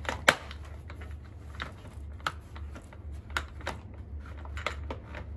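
Plastic parts of a Mamakiddies baby high chair being worked by hand at the hinge and bar below the seat: a series of irregular clicks and knocks, the sharpest about a third of a second in.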